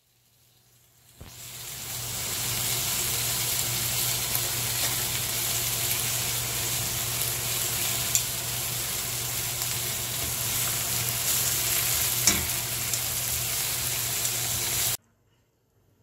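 Pork belly slices sizzling as they fry in a nonstick pan, with a low steady hum under it. The sizzle swells up over the first two seconds. Tongs click against the pan twice, and the sizzle cuts off suddenly near the end.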